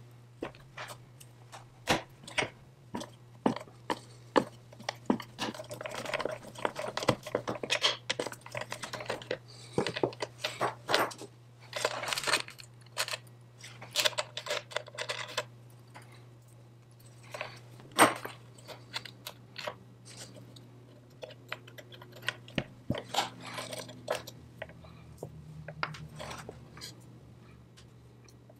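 Hand work on metal engine parts: irregular clicks, knocks and stretches of scraping as pieces and hand tools are handled, with one sharper knock about eighteen seconds in.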